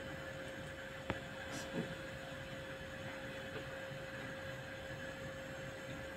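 A steady electrical hum under faint room noise, with one sharp click about a second in and a soft knock just after.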